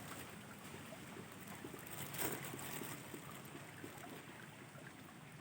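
Faint steady outdoor hiss of moving water and wind at a fishing spot, with a few light clicks about two seconds in.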